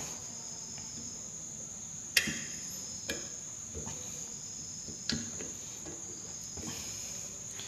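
A few sharp metallic clicks of a hand tool on the nuts of a Suzuki WagonR integrated starter generator as they are rechecked for tightness, the loudest about two seconds in. Crickets chirr steadily and high-pitched behind them.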